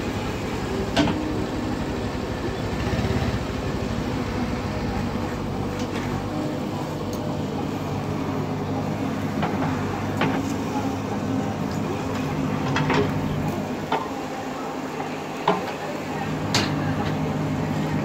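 JCB 3DX backhoe loader's diesel engine running steadily under hydraulic load while the backhoe digs soil, with several sharp clunks from the bucket and arm.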